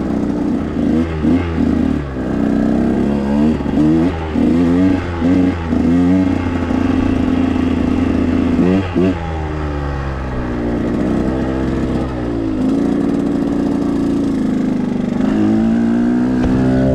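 KTM 125 XC two-stroke dirt bike engine revving in quick repeated blips for the first several seconds, with one sharp rev about nine seconds in, then holding steadier revs, as is typical of slow technical riding on the clutch and throttle.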